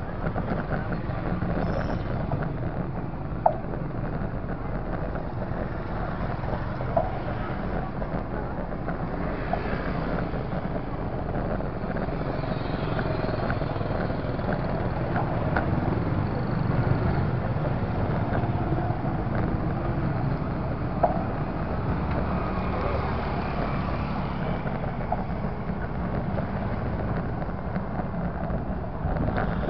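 Steady low engine and road rumble from a motorcycle riding slowly through traffic, with a few short sharp clicks.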